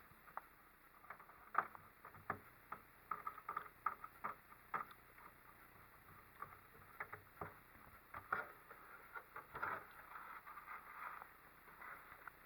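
Faint, irregular clicks and short scrapes of a screwdriver and small kit parts being handled while a 3D printer frame is put together.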